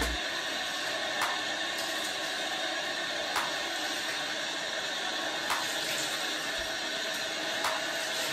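Water running steadily from a bathtub tap onto hair and into the tub while the hair is rinsed, with a faint click about every two seconds.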